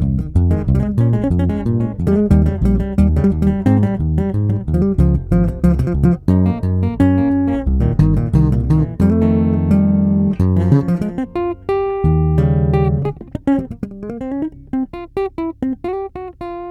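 Electric bass played with a two-handed tapping technique through a compressor: a fast, dense run of short notes at a fairly even level, with a few sliding notes and sparser notes near the end.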